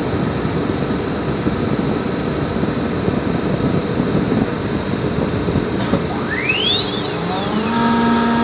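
CNC router machinery running with a steady noisy rush. About six seconds in there is a click, then the spindle spins up with a rising whine that settles into a steady hum near the end.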